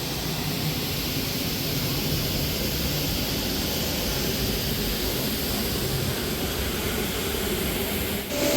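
Steady rushing noise of wind and track roar on a roller-coaster rider's camera, dipping briefly just before the end.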